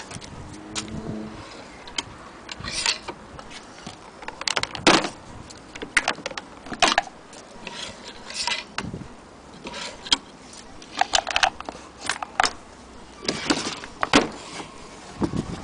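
Irregular clicks, knocks and light rattles of objects being handled, some sharp, spaced unevenly, with no machine running steadily.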